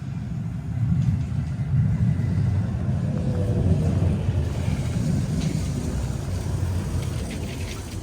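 Calgary CTrain light-rail train pulling into the station: a low rumble that swells about a second in and eases off toward the end as it slows.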